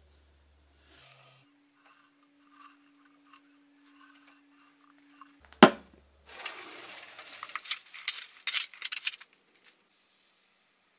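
A sharp knock about halfway through as a large horn is set down on a steel anvil, then about three seconds of light clinking and rattling. Faint scattered taps come before the knock.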